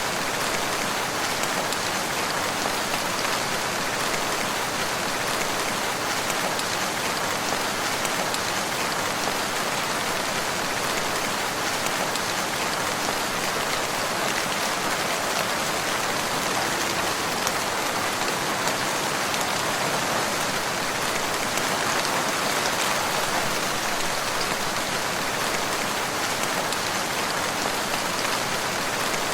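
Steady rain falling, an even patter of drops on a surface with no thunder.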